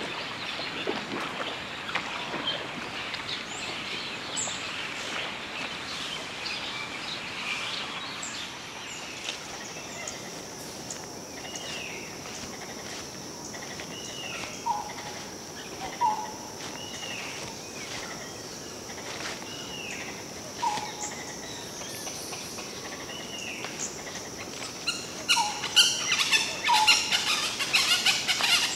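Outdoor ambience of wild birds calling. A repeated arching call recurs about every one and a half seconds through the middle, over a steady high insect drone that sets in about a third of the way in. Near the end comes a flurry of louder, sharp sounds.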